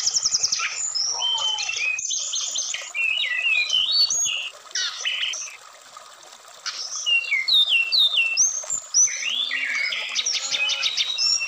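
Brown-chested jungle flycatcher singing a varied run of quick high whistles, slurred notes and fast trills, with a short pause about six seconds in. Faint running stream water underneath.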